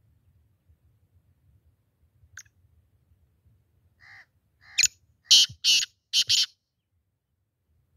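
Male black francolin calling: a faint note, then a few softer notes building to three loud, short notes in quick succession about five seconds in.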